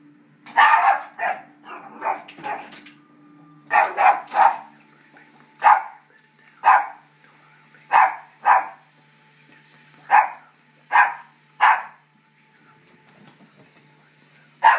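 Yorkshire terrier barking repeatedly: about fifteen short barks in quick runs of two or three, with pauses of about a second between runs.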